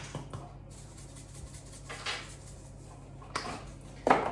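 A few light, scattered knocks and clicks of spice containers being picked up and put down on a kitchen counter, the loudest one near the end.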